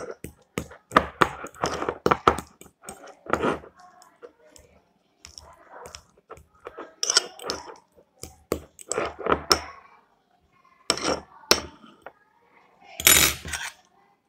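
Avocado being mashed in a bowl with a utensil: irregular clinks and knocks of the utensil against the bowl, with short pauses and a louder clatter near the end.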